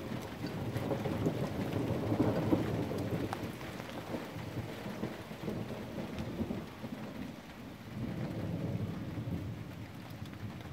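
Rolling thunder rumbling low over steady rain. The rumble slowly fades, then swells again about eight seconds in.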